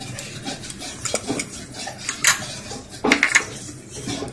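A few light clinks and knocks of a metal spoon against glass and ceramic dishes.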